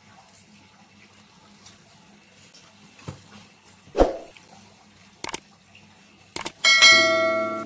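Faint rustling of a plastic mailer bag being handled, a thump about four seconds in as the parcel is set down on the silicone mat, then a few clicks and a bright, ringing chime near the end as music starts.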